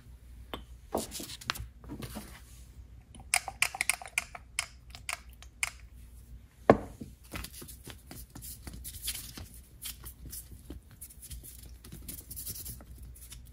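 Workbench handling sounds: scattered taps and clicks as a metal carburetor float bowl and tools are moved on a granite surface plate, then the rustle and scrape of a sheet of sandpaper being laid on the plate and smoothed flat by hand. One sharp knock stands out about seven seconds in.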